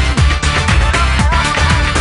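Upbeat electronic dance music with a steady kick-drum beat.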